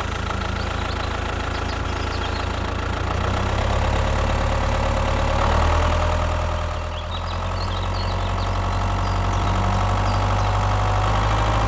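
A motor running steadily with a low, even hum, its pitch shifting slightly around the middle.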